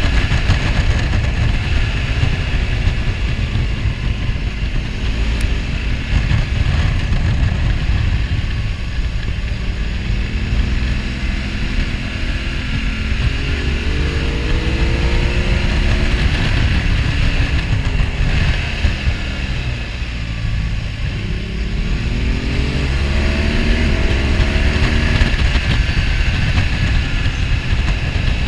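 BMW R1200 GS Adventure's flat-twin engine running on the move, its pitch rising as it revs up twice, about halfway in and again near the end, over a steady rush of wind noise.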